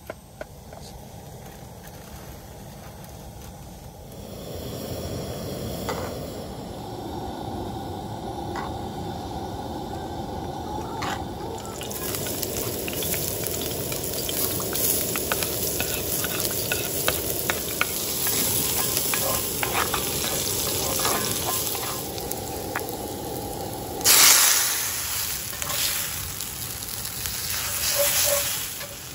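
Food frying in hot oil: a steady sizzle that starts about four seconds in and grows busier with crackles from about twelve seconds. It swells loudly about 24 seconds in.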